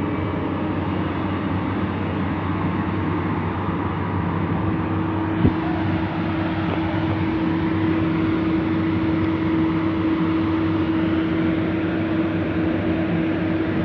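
Heavy diesel machinery running steadily, with a constant whine, and a single sharp knock about five and a half seconds in.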